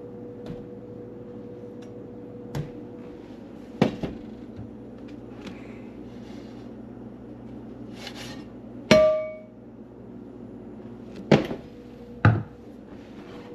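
Kitchen cookware and utensils knocking as they are handled and set down: about five sharp knocks, the loudest about nine seconds in ringing briefly with a clear tone, over a steady low hum.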